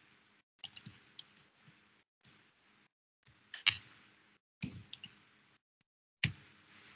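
Computer keyboard keys clicking during typing, in short clusters of taps separated by abrupt silences. The sharpest taps come about three and a half and about six seconds in.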